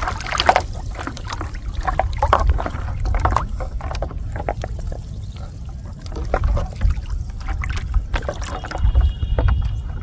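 Water splashing and sloshing in irregular bursts over a low rumble.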